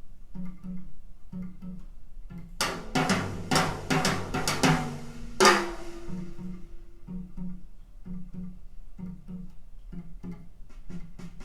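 A jazz trio recording played back over a home hi-fi system: a repeating bass line under a drum kit. Partway through the drums break into a loud fill of snare hits and cymbal crashes, which ends on a held note, and then the bass line carries on.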